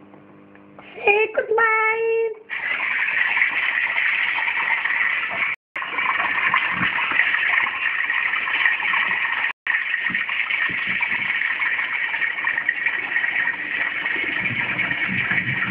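A short high-pitched vocal cry, then a long steady rushing noise of water, broken twice by brief dropouts.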